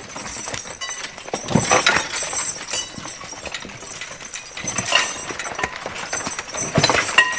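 Draft horses' hooves stepping and clattering on stony ground, in a few irregular bunches of knocks.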